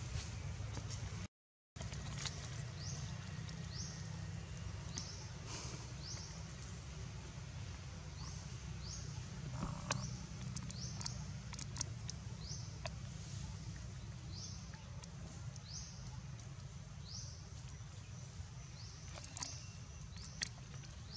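Outdoor ambience: a steady low rumble under short, high, rising chirps that repeat about once a second from a bird or insect, with a few sharp clicks and leaf rustles. The sound cuts out completely for a moment near the start.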